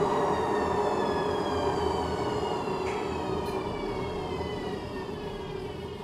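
Koenic front-loading washing machine's drum spinning down after the spin cycle: a whine of several tones slowly falling in pitch and fading, over a rough rumble. The noise is the sign of a failed drum bearing.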